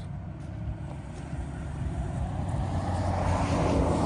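A motor vehicle approaching and passing, its rushing noise swelling over about two seconds to a peak near the end. A steady low engine hum runs underneath.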